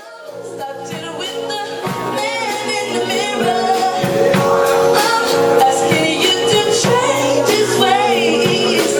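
A live band playing a groove number with a singer, fading in over the first couple of seconds and then holding steady.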